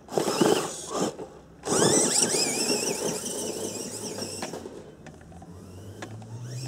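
Tamiya Lunchbox RC monster truck's electric motor and gearbox whining: two short blips of throttle, then a long run with a high whine climbing in pitch as it accelerates away, fading with distance.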